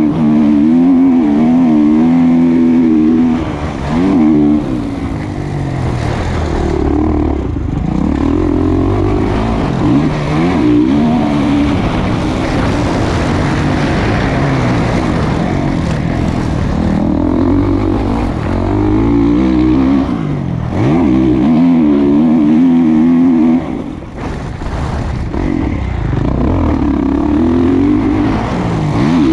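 2020 Kawasaki KX450's single-cylinder four-stroke engine through a Pro Circuit slip-on exhaust, heard from on the bike, revving hard and dropping off again and again as the rider accelerates, shifts and rolls off the throttle while racing a motocross track.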